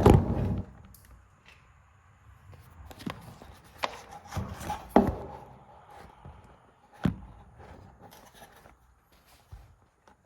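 Irregular knocks and clunks of hardware and tools being handled, a dozen or so spread unevenly, the loudest right at the start.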